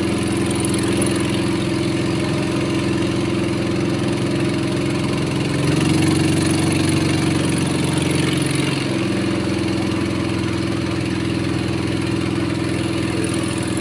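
Engine of a small wooden motorboat running steadily under way. About six seconds in it picks up, a little higher and louder, for some three seconds, then drops back to its earlier pace.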